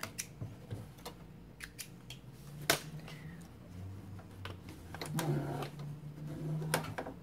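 Domestic electric sewing machine stitching patchwork fabric, its motor running in stretches over the second half. Clicks and taps of the fabric and machine being handled come throughout, the loudest a sharp click a few seconds in.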